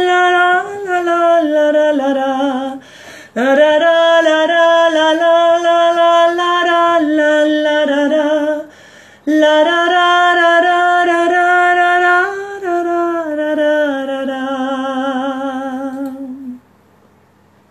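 A woman singing a wordless melody a cappella in long held notes. There are three phrases with short breaks between them, each stepping down in pitch at its end, and the singing stops about a second before the end.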